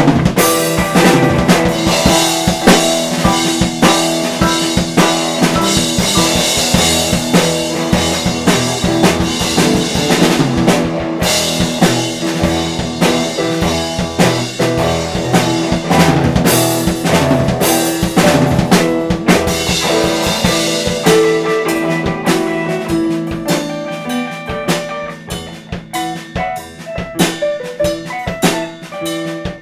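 Band music with a drum kit keeping a steady beat over bass and keys, thinning out and getting quieter over the last few seconds.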